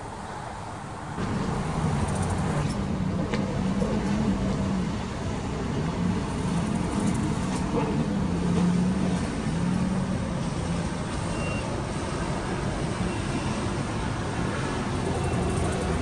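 Road traffic with a heavy vehicle's engine running as a steady low hum, which grows louder about a second in and holds.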